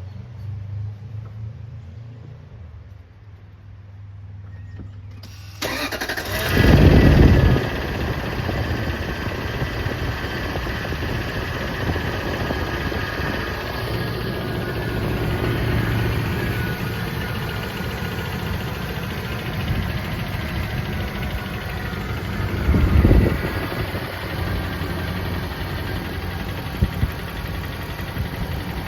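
Lexus GX470's 4.7-litre V8 starting about five seconds in, flaring up briefly, then running steadily at idle with a second brief rise near three-quarters through. The running carries the ticking noise the owner is asking about since the engine was hydrolocked in water.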